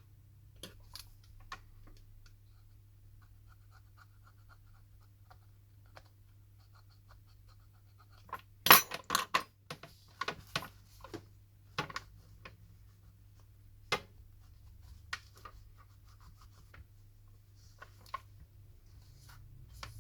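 A small hand tool scraping and clicking against a smartphone's frame as old screen adhesive is cleaned off. The strokes come in scattered bursts, with the loudest cluster of scrapes about nine seconds in.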